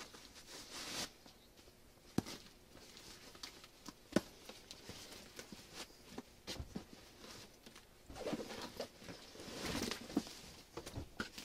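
Handling noise from a WW2 military gas mask bag stuffed with clothes: fabric and plastic rustling with scattered sharp taps and knocks. The rustling is fullest near the end.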